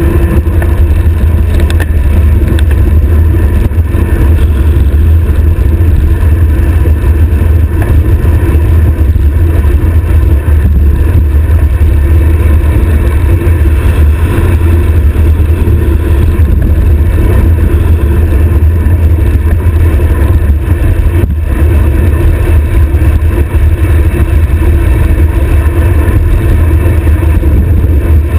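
Loud, steady wind rush and rumble on a bicycle-stem-mounted camera's microphone during a high-speed road-bike descent.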